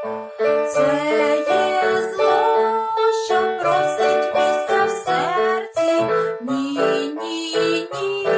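Electric keyboard music playing a bright, rhythmic melody: the instrumental accompaniment of a children's song.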